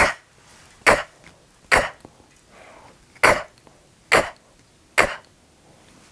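A woman's voice repeating a short, throaty consonant sound six times, a little under a second apart, each one a sharp, breathy burst: a Spanish letter sound being demonstrated.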